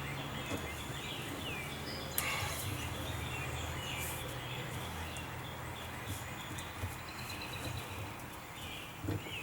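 Small birds chirping over a steady low hum, with one sharp click about two seconds in.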